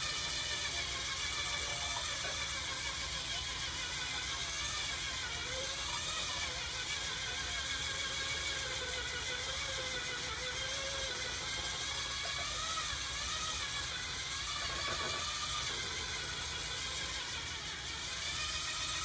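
Electric mixer running at low speed, beating eggs in a bowl: a steady motor hum with a faint whine that wavers slightly in pitch.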